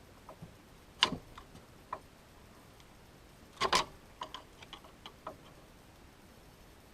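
Scattered light clicks and knocks of hand tools being handled, with a sharp knock about a second in and a louder double knock a little past the middle, then a few small ticks.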